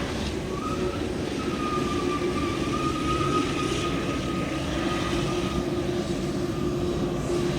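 Airliner engines running steadily: a broad rush with a steady low hum and a higher tone that wavers slightly in pitch.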